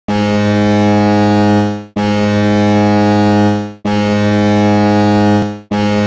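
SC Bern's ice hockey goal horn sounding four long, deep blasts of just under two seconds each, with brief gaps between them.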